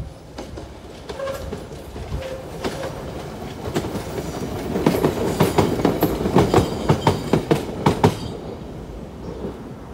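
1938 tube stock electric train passing close by on jointed track. Its wheels make a clickety-clack over the rail joints that grows louder as it nears, is loudest from about five to eight seconds in, then fades away.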